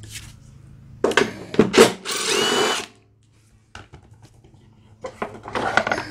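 Power drill driving a 5/16 socket on a bolt of a lawn mower, to take the bolt out. It is triggered in a few short bursts about a second in, then spins steadily for about a second with a rising whine, and gives more short bursts near the end.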